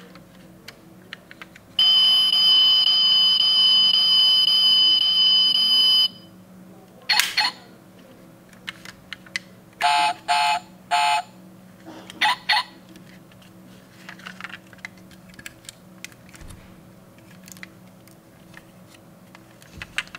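Electronic sound module of a die-cast toy Rolls-Royce car playing a steady buzzing tone for about four seconds, then short beeps in quick groups of two and three. Faint small clicks of the toy's doors and body being handled.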